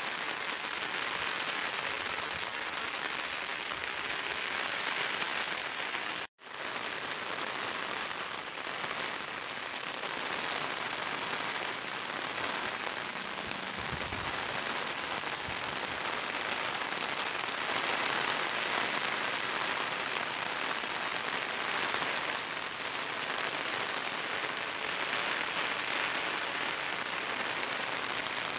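Heavy monsoon rain falling steadily on wet ground and puddles, a dense, even hiss. It cuts out for a split second about six seconds in.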